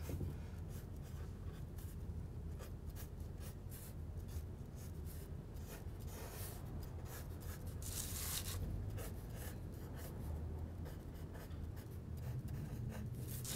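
Pencil scratching on watercolor paper in many short, sketchy strokes, drawing a dark outline, with a couple of longer strokes about six and eight seconds in.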